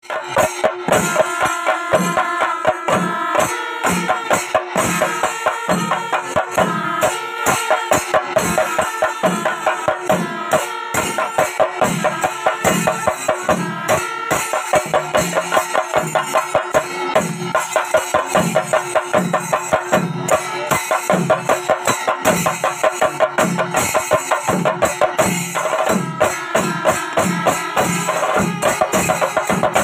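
Chenda melam: a large ensemble of chenda drums played with sticks, dense rolling strokes over a steady low beat about twice a second, with kuzhal pipes sounding a held reedy tone above the drums.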